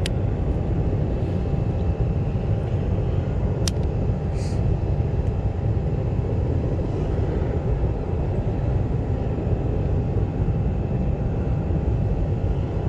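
A steady low rumble with a faint steady hum running through it, and a single sharp click a little under four seconds in.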